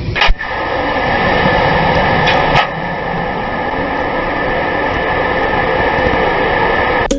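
Steady loud rushing noise with a thin high whine, broken by a sharp click about a third of a second in and two more clicks a couple of seconds in.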